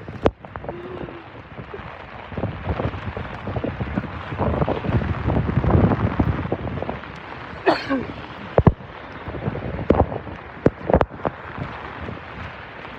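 Heavy rain pouring down as a steady hiss, with a few sharp taps and knocks scattered through.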